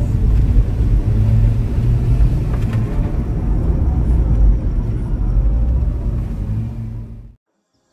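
Vehicle engine and tyre rumble heard from inside the cab while driving over an unsealed forest track. It cuts off abruptly near the end.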